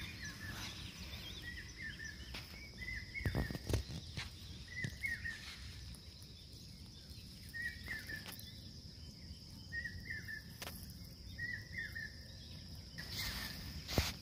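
A bird repeating short chirps every second or so over a steady high-pitched hiss, with a few soft knocks, the loudest about three seconds in and near the end.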